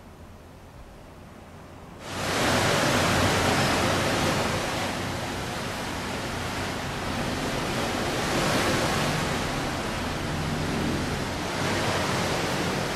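A steady, even rushing noise that starts abruptly about two seconds in, after a faint hiss.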